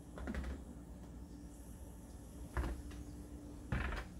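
Wet bell peppers and tomatoes being handled and set down on a baking tray: three short knocks and rubs, one just after the start, one at about two and a half seconds and one near the end.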